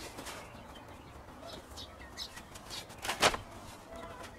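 Hands scooping and brushing loose oak sawdust, a soft rustle with one louder swish about three seconds in. Faint bird chirps in the background.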